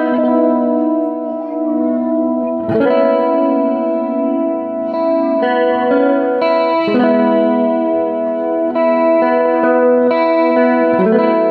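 PRS S2 Custom 24 electric guitar played with a clean tone: ringing chords with picked notes over them, a new chord struck about three seconds in, again around seven seconds and near the end.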